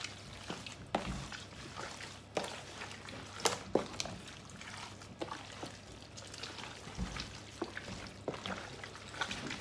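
Raw chicken pieces being turned and mixed by hand with dry seasoning in a plastic tub: irregular wet squishes and slaps of the meat, with a couple of dull thuds.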